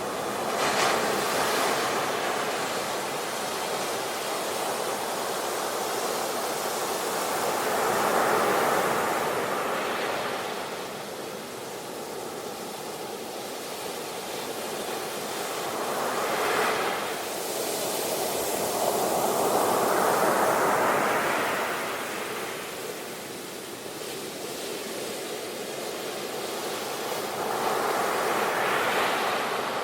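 Sea waves breaking and washing up the shore, the surf swelling and ebbing every few seconds, about five times.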